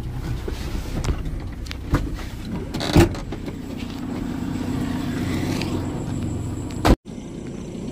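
A car's engine running, with clicks and a loud thump about three seconds in as a car door is opened and a man gets out. A sharp knock comes near the end, then the sound cuts out for a moment.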